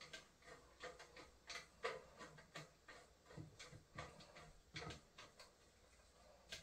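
Faint, irregular clicks, about two or three a second, of a Phillips screwdriver turning an M6 bolt into the metal base frame of a model airplane storage rack.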